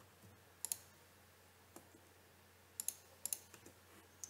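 Faint, sharp clicks of a computer mouse: a double click about two-thirds of a second in, then a run of clicks, several in quick pairs, from about three seconds in.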